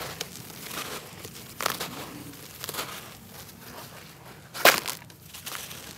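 A wet, grainy red-dirt block crunching and crumbling as hands crush it in muddy water. Two sharp crunches stand out, the loudest about three-quarters of the way through.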